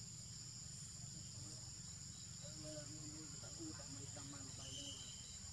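Forest insects, crickets or cicadas, keeping up a steady high-pitched chorus, with a rapid pulsing chirp underneath.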